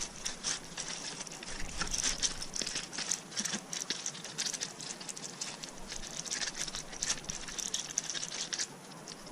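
Rapid, irregular light clicks and taps.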